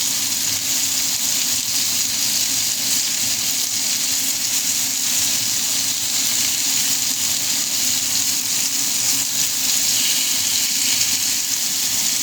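Bacon sizzling and crackling steadily in a frying pan, with a faint low steady hum underneath.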